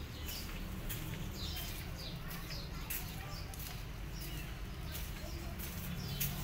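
Small birds chirping repeatedly in short, high, falling notes, with sharp ticks among them, over a steady low background rumble.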